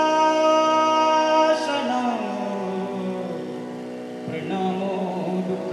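Male voice singing a Sanskrit devotional chant, holding one long steady note that breaks off about a second and a half in, then moving into gliding melodic phrases over a steady low drone.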